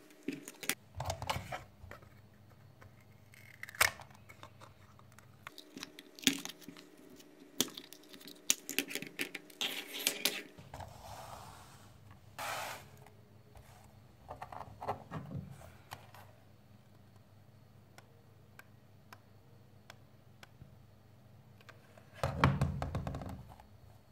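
Wooden ice cream sticks tapping and clattering on a tabletop as they are picked up and laid out, a series of sharp knocks. There is a short scraping rustle about eleven seconds in and a longer, louder one near the end.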